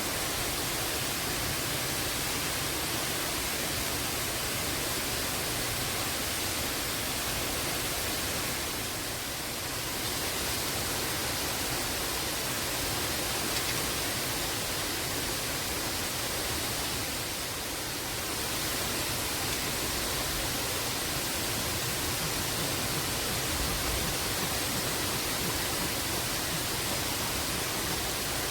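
Waterfall rushing: a steady wash of falling water that eases slightly twice, about a third and two thirds of the way through.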